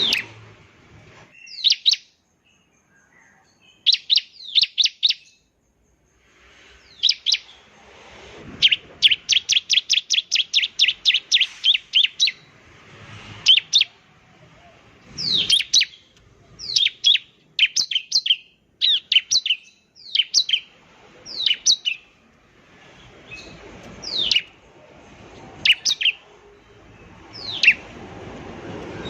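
Bar-winged prinia (ciblek) singing: sharp chirps in short clusters, each note sweeping down in pitch. About a third of the way in comes a quick, even run of about four notes a second.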